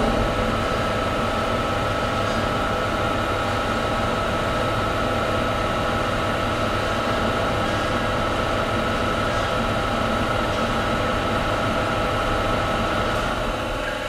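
Industrial saw running with several steady whining tones over a rough, noisy grind. It jumps suddenly louder at the start, holds steady, and eases off a little near the end.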